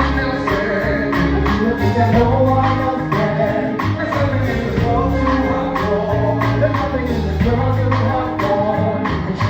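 Gospel music with singing over a band: sustained bass notes and a steady drum beat.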